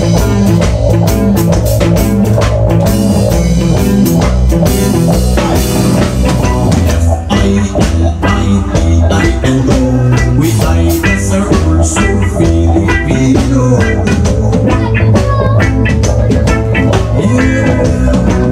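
Live rock band playing loud, amplified, with electric guitars over a steady drum-kit beat.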